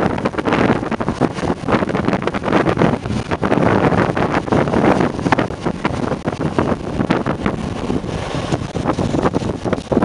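Two trains passing beneath at once, a Southern multiple unit and a Gatwick Express Class 442 electric unit, with wind buffeting the microphone.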